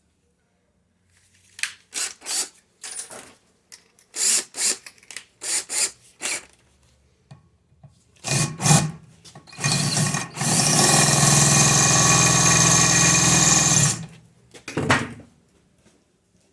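Electric drill drilling out a stuck brake rotor screw: a string of short bursts, then a steady run of about three and a half seconds, then one more short burst near the end.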